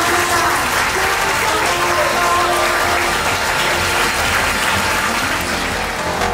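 A room of guests applauding steadily, with soft background music underneath.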